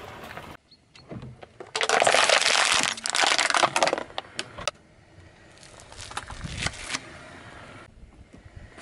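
Car tyre rolling over a plastic drink bottle and flattening it: loud crackling and crunching of the plastic with sharp cracks, lasting about three seconds, followed by quieter scattered crunching of the tyre on the rough asphalt.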